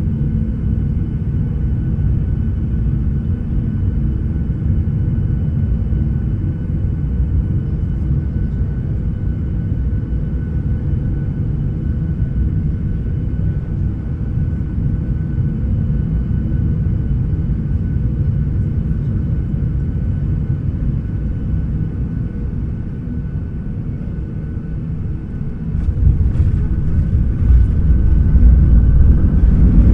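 Airliner noise heard from inside the passenger cabin: a steady loud low rumble with a faint steady engine whine. Near the end it suddenly gets louder and rougher, with rattling.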